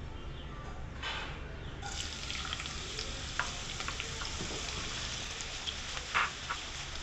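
Sliced onions sizzling in hot oil in a nonstick kadai, the sizzle growing fuller about two seconds in as the onions go in. A wooden spatula stirs them, with a few knocks against the pan and the loudest one near the end.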